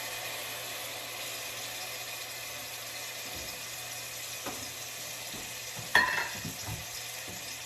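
Spices sizzling in hot oil in a pan, a steady frying hiss. A sharp knock sounds about six seconds in.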